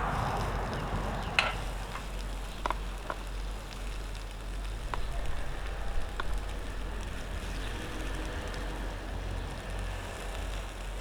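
Sausages and onions frying on a tiny cooker: a steady sizzle with a few sharp spits and pops.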